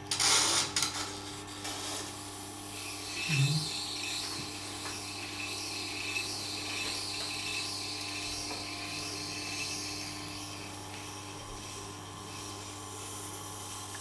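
Tormek wet grinder running with a steady low motor hum while a serrated knife blade is held against the turning grindstone, giving an even grinding hiss of steel on stone. A few clicks and knocks in the first second.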